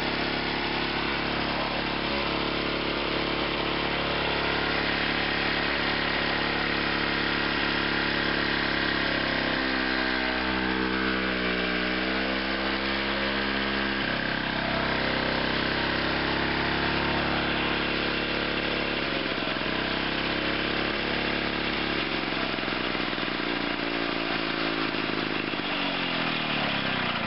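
Victa 125cc two-stroke lawn mower engine running steadily just after a cold start. Its speed wavers for a few seconds about ten seconds in, then drops near the end.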